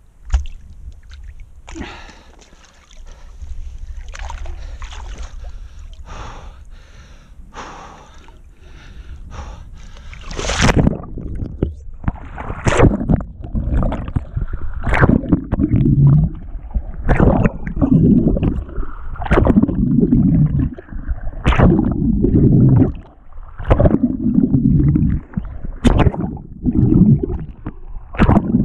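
Swimming in open water, heard from a camera that dips in and out of the lake. About ten seconds in, a steady rhythm of swim-stroke splashes sets in, roughly one every two seconds, with muffled underwater gurgling between them.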